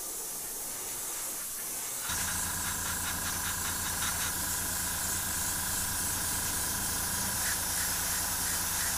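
Gravity-feed airbrush spraying primer in a steady hiss. About two seconds in, a low steady motor hum joins it.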